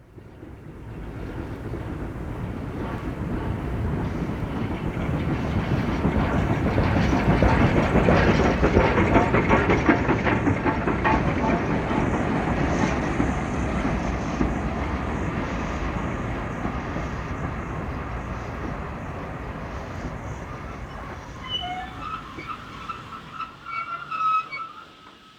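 A train on a steam railway passing by: the rumble and clickety-clack of its wheels over the rail joints builds up, is loudest about a third of the way through, then slowly dies away. Near the end there are several short, high wheel squeals.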